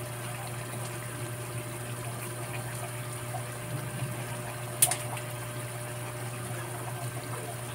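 Alamang (tiny shrimp) simmering in oil in a metal pan: a steady bubbling hiss with faint small pops over a steady low hum. A single sharp click about five seconds in.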